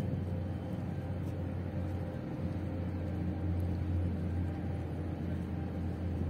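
Low, steady rumble of ship engines under way: a deep drone with faint humming tones over it, swelling a little after about two seconds.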